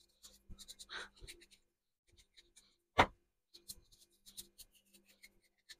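Kitchen knife slicing through a raw peeled potato held in the hand: faint, scattered cutting and scraping sounds, with one sharper click about three seconds in.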